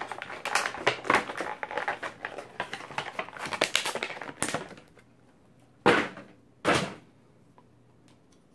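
Clear plastic bag crinkling and rustling as a small vinyl figure is pulled out of it. Near the end come two short, loud sounds about a second apart.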